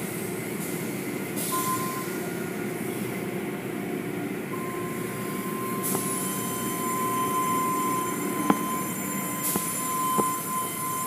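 Automatic car wash machinery running: a steady mechanical rumble with a few bursts of high hiss from the water spray. About four seconds in a steady high-pitched whine starts and holds. A couple of sharp clicks come near the end.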